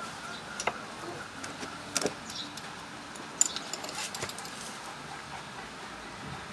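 Wrench clinking on the valve adjuster locknuts and rocker arms of a Yamaha Mio i125 engine as the locknuts are tightened after setting valve clearance: a handful of sharp metal clicks, loudest about two seconds in and again about three and a half seconds in.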